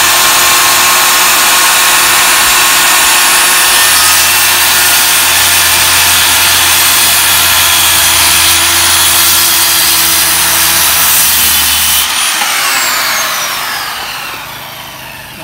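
Corded circular saw running at full speed and cutting through a wooden board, its motor sound deepening under load through most of the cut. About twelve seconds in the trigger is released and the blade spins down with a falling whine that fades away.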